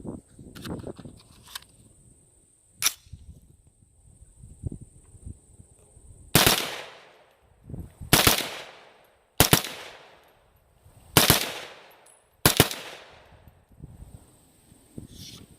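AR-15 rifle in .300 Blackout firing Wolf 145-grain steel-case rounds: five loud shots about a second and a half apart, each with an echoing tail, after a couple of lighter clicks. The rifle cycles the steel-case ammo without a malfunction.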